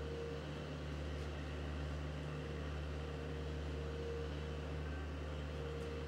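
A steady low hum with a faint hiss, and a faint higher tone that comes and goes a few times.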